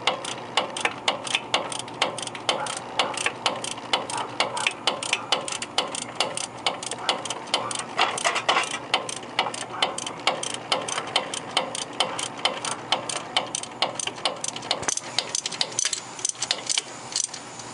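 Hand socket ratchet clicking in quick, steady strokes as it runs a hub assembly bolt, about three to four clicks a second.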